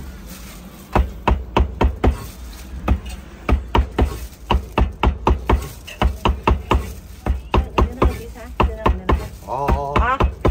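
A cleaver chopping braised pork intestines on a cutting board in quick, even strokes, a few a second, starting about a second in. A short voice near the end.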